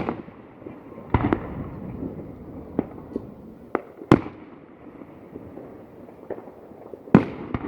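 Fireworks shells bursting overhead: a run of sharp bangs, loudest at the very start, about four seconds in and near the end, each followed by a rolling, echoing rumble, with smaller pops between.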